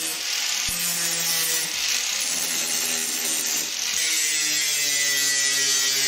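Angle grinder grinding burrs off the edge of a perforated steel plate: a continuous gritty hiss over the motor's whine, which drops slightly in pitch about four seconds in.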